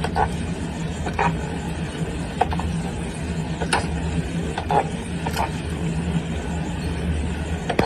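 Steady low mechanical hum with sharp clicks coming irregularly, about once a second.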